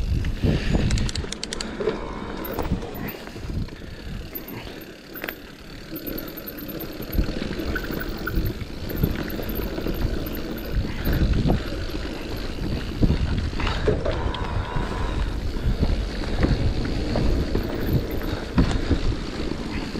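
Full-suspension electric mountain bike riding a bumpy dirt forest trail: steady tyre rumble with frequent knocks and rattles as the bike goes over roots and ruts.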